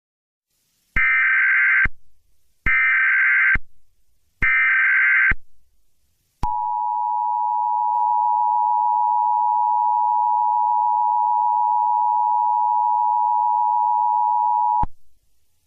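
Emergency Alert System tones opening a new alert: three short bursts of SAME digital header data, each about a second long, followed by the steady two-tone attention signal held for about eight seconds before it cuts off.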